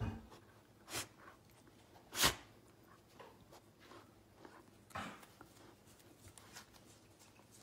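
Golden retriever chewing and mouthing a plush toy: a few short bursts of chewing noise, the loudest about two seconds in, with no squeaks.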